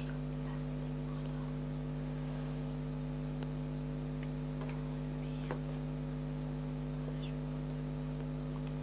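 Steady electrical hum with a few faint small ticks.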